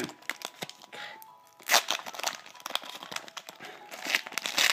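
Foil trading-card booster-pack wrapper crinkling in the hands, with a sharp crackle about a third of the way in and a denser run of crackling and tearing near the end as it is ripped open. Background music plays under it.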